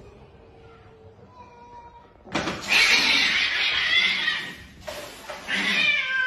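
Two kittens squabbling: a loud, harsh screech lasting about two seconds, then a shorter yowl falling in pitch near the end.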